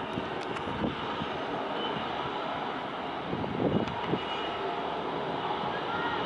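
Distant helicopters flying over: a steady noisy drone of rotors and engines, with a few louder low bumps about a second in and again around four seconds in.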